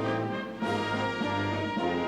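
Orchestral music led by brass, playing held chords that change about two thirds of a second in and again near the end.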